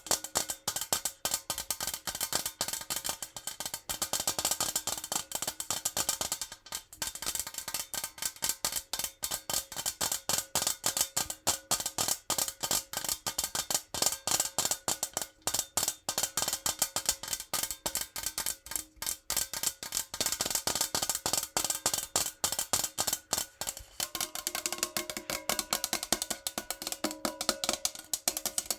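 Fingernails tapping fast on a metal jar: a dense run of light, quick clicks with no pauses. After about 24 s the jar rings out with a few faint tones under the tapping.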